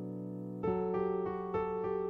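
Background music on electric piano: a held chord fading, then a new chord struck a little past half a second in and repeated notes every half second or so.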